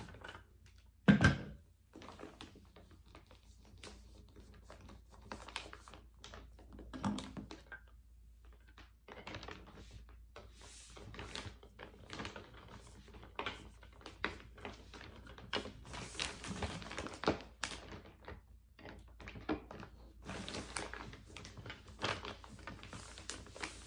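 A single loud thunk about a second in, then irregular small clicks, taps and plastic rustling from vacuum compression bags and clothes being handled.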